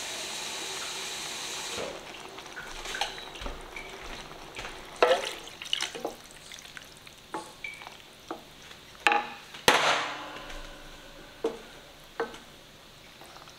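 A tomato and vegetable sauce sizzling steadily in a hot enamelled cast-iron pot for the first couple of seconds. Then a wooden spoon stirs it, with scattered scrapes and knocks against the pot, the loudest about halfway through.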